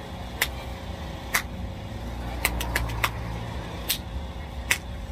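Low steady rumble of vehicle engines and traffic, swelling for a second or so about halfway through, with scattered sharp clicks.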